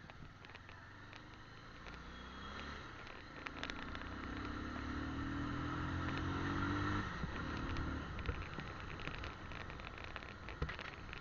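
Motorcycle engine pulling up a slope, its pitch climbing slowly for several seconds and then easing off about seven seconds in, under a steady hiss of road noise with scattered small knocks.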